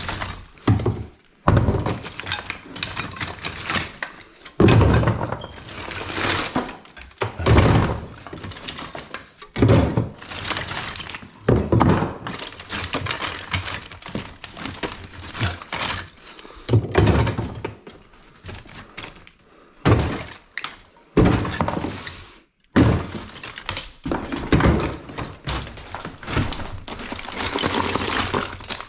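Broken lath-and-plaster debris being gathered up and thrown by hand: heavy thuds and crashes every second or two, with crumbling and scraping between.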